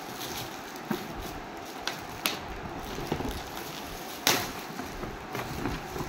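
Shiny foil gift wrap crinkling and rustling as it is torn off a boxed toy, with a few sharp crackles, the loudest a little past four seconds in.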